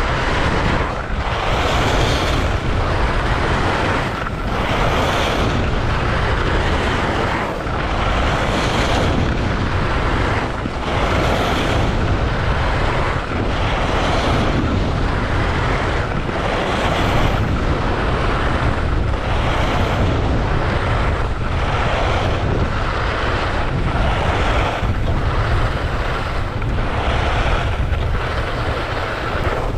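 Wind rushing over and buffeting the action camera's microphone during a fast ski descent, a loud rumbling roar that swells and dips about every second and a half, as with each ski turn.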